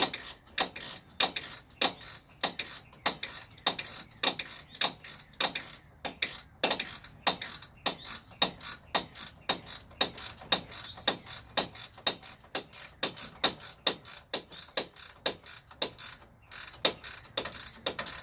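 Ratchet wrench clicking in steady back-and-forth strokes, about three clicks a second, as a 10 mm bolt is run in and tightened.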